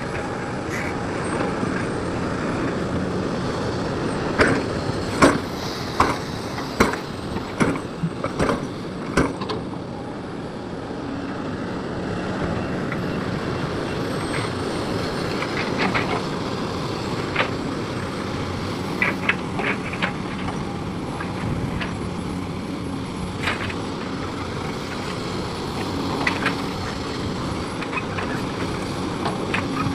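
Excavator's diesel engine running steadily, with a run of sharp metallic clanks between about four and ten seconds in and more scattered clanks later on.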